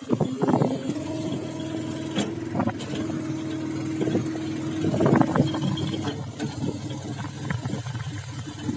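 A fishing boat's engine running steadily while the boat is underway, a low, even hum. A few louder irregular bursts come through about half a second in and again around five seconds in.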